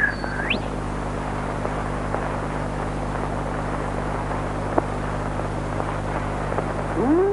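Steady hiss and hum of an old 1930 film soundtrack, with no music playing. A short high tone glides upward at the very start, and a lower tone slides up and back down near the end.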